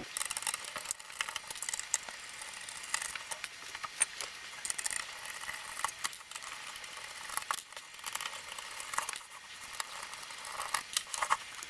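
Small screwdriver backing screws out of a car head unit's aluminum cover: faint, irregular clicks and scrapes of metal on metal, with now and then the tick of a loose screw set down on the desk.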